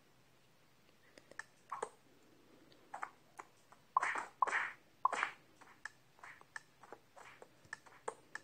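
Cartoon sound effects from a stick-figure animation: scattered sharp clicks and taps with short whooshes, the loudest cluster about four to five seconds in.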